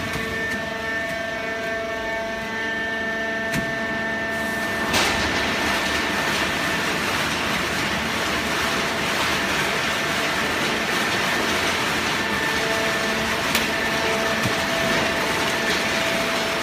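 Hydraulic horizontal baler running as it compresses waste paper: a steady whine from the machine. About five seconds in there is a click, after which a louder, even rushing noise takes over.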